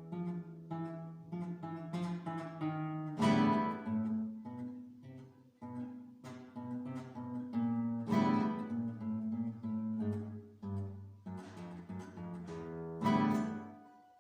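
Solo acoustic guitar playing a slow piece: single plucked notes over ringing bass notes, broken by louder strummed chords about 3, 8 and 13 seconds in.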